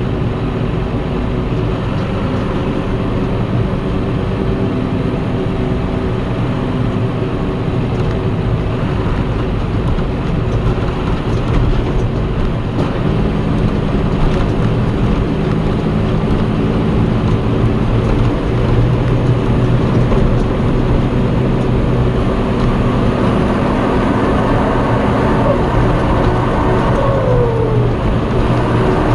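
John Deere 6230 Premium tractor's turbo diesel engine running under way, heard from inside the cab, with its variable-geometry turbo disabled. The engine note rises and strengthens partway through, and a short falling whine sounds near the end.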